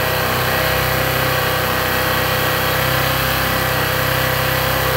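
Motorcycle engine idling steadily, holding an even pitch with no revs.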